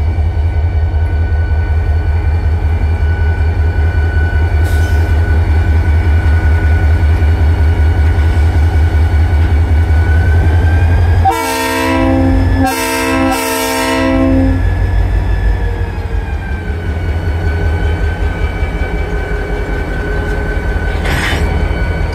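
EMD GP40-2 diesel-electric locomotive with its turbocharged V16 engine running with a loud, steady low rumble, sounding its multi-chime air horn twice about halfway through: a short blast, then a longer one. The engine is somewhat quieter after the horn.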